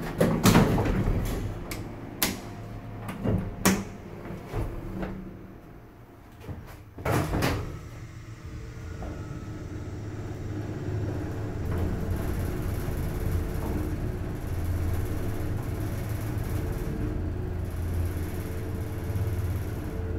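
Elevator doors closing with a series of clunks and knocks over the first several seconds. Then the 1975 Miami Elevator hydraulic elevator's pump motor runs with a steady hum as the car rises.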